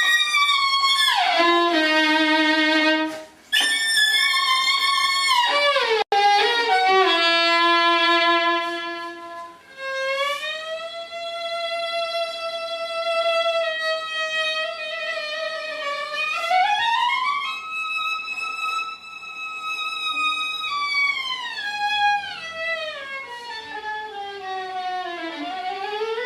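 Sustained pitched musical tones rich in overtones, one voice at a time, sliding down and up in long smooth glides between held notes. There is a brief drop-out about three seconds in and a sudden break about six seconds in.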